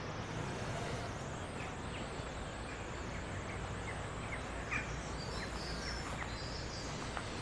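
Small birds chirping now and then over a steady outdoor background noise.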